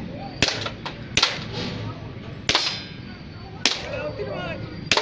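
Gas-blowback airsoft pistol (Glock 17) firing five sharp shots, roughly one a second.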